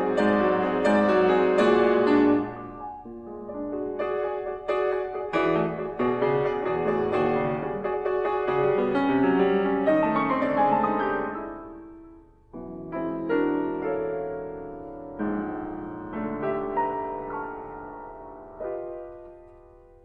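Solo grand piano playing contemporary classical music: a dense run of many notes for about eleven seconds, fading to a brief pause, then a quieter passage of chords that dies away on a held note near the end.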